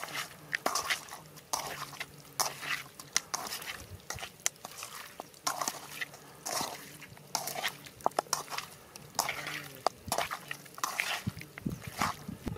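Raw chicken pieces being mixed by hand with spice paste in a metal pan: irregular wet squelches and slaps, with sharp knocks of the pieces against the metal.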